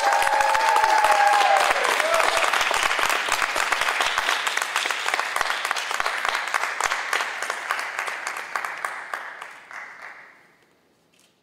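Audience clapping for a graduate crossing the stage, with a few shouts of cheering in the first two seconds. The applause dies away shortly before the end.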